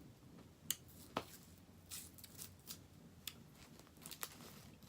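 Plastic candy wrapper being handled and opened: a handful of short, sharp crinkles spaced irregularly, about seven in all.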